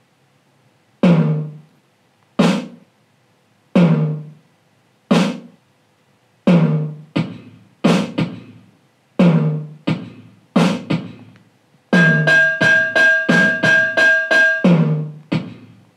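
Drum samples playing from an Adafruit Trellis M4 step sequencer through a powered speaker. Single drum hits come about a second and a half apart, grow busier about halfway through, then give way near the end to a fast run of cowbell strikes, about five a second, before the drum hits return.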